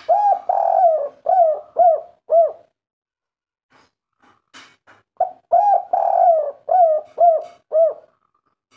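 Spotted dove cooing its 'kuk 3' song twice, about five seconds apart. Each phrase is a short lead note, an arched coo, a longer drawn-out coo, then three shorter clipped coos. A few faint ticks fall in the gap between the phrases.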